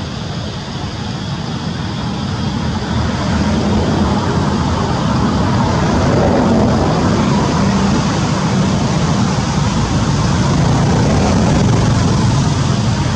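Steady rumble of motor traffic, swelling about three seconds in and then staying loud.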